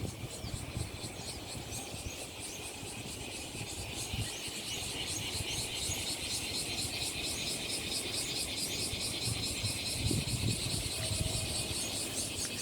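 Insects chirring in a rapid, steady pulse over a low rumble.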